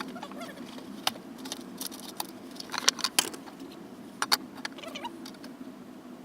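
Irregular metallic clinks and rattles from thin sheet metal being handled and worked into homemade gaskets, over a steady low hum.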